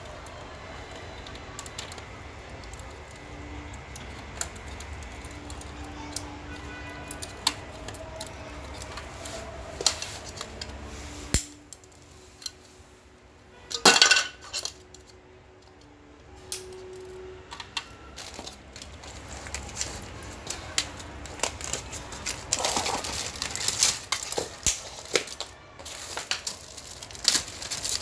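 Scattered clicks, knocks and rattles of plastic plugs and cables being handled and pushed into a modem and router, with a louder clatter about fourteen seconds in and busier clicking toward the end.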